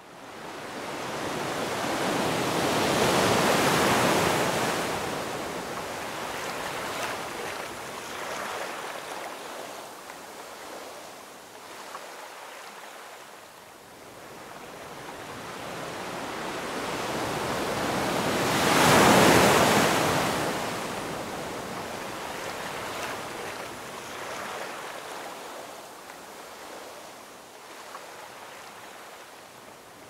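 Ocean surf breaking and washing up a sandy beach, a steady rushing noise that swells twice, loudest about four seconds in and again near twenty seconds in.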